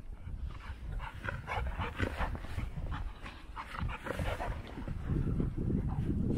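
Two golden retrievers play-wrestling in the snow, making dog vocal noises. The sound grows louder and denser about five seconds in, as they tussle.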